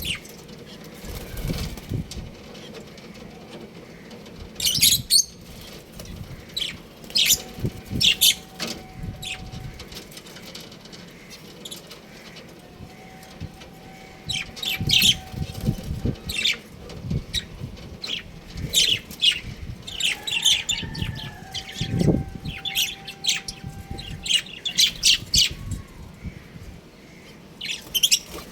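Small aviary birds chirping in quick, scattered bursts, with wing flutters. A faint steady tone sounds three times, for a few seconds each.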